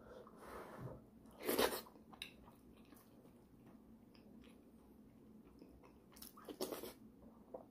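A man eating braised pork leg with his hands: chewing and biting sounds, with a louder one about a second and a half in and a few more just after six seconds.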